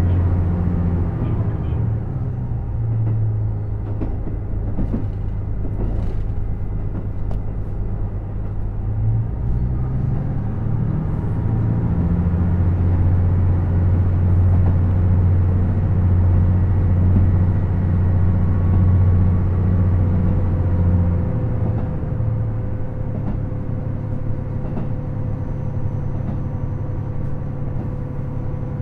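KiHa 75 diesel railcar running, its engine drone steady and low, with the pitch of the engine note stepping up and down several times as the power changes.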